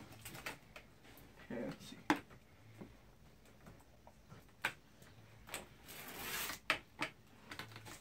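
Scattered light knocks and clicks of a computer monitor being handled and positioned on a desk, with a brief rustle of plastic wrap about six seconds in.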